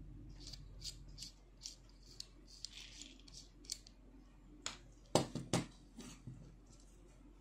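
Handling noise from a reassembled Polaroid SX-70 shutter unit turned over in the fingers: a string of small light clicks and taps of metal and plastic parts. A little past five seconds in come two louder knocks close together, and a weaker one follows.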